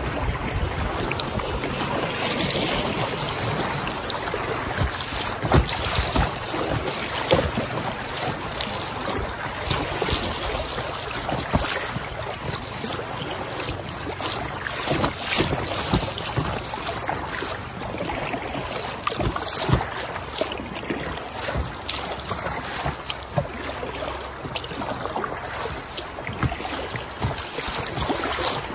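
Inflatable kayak under way on a creek: moving water and irregular paddle splashes, with wind buffeting the microphone.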